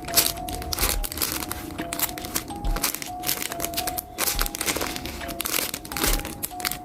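Packaging crinkling and rustling in quick handling noises, over background music with a simple stepping melody and a slow, steady low beat.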